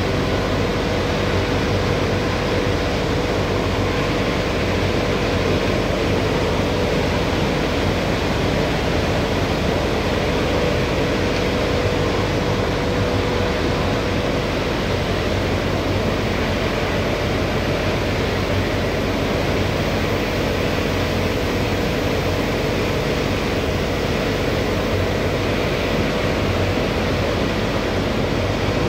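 Steady machinery drone of electric motors running in a workshop: an even rushing noise with a constant hum under it, unchanging throughout.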